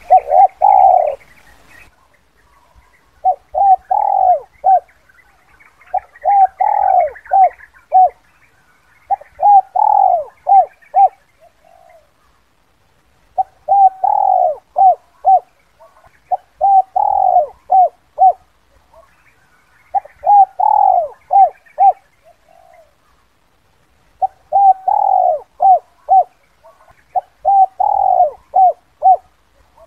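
Spotted dove cooing: a short phrase of several coos, one strong note followed by quicker short ones, repeated about every three seconds with quiet gaps. This is the 'kuk 2' call type used as a recorded lure for wild spotted doves.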